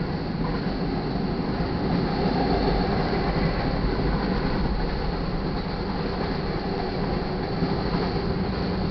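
Cars of a mixed freight train rolling past, a steady noise of steel wheels running on the rails.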